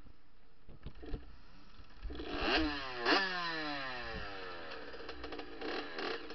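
Muffled two-stroke dirt bike engine revved hard twice, about two and a half and three seconds in, its pitch sliding down each time as the throttle eases off, with a couple of knocks about a second in and another short burst of revs near the end.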